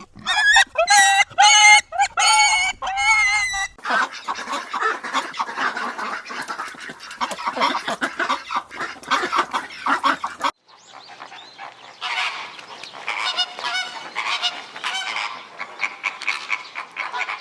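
Geese honking: a run of about six repeated honks, then a flock's dense, overlapping calling, broken by an abrupt cut about ten seconds in.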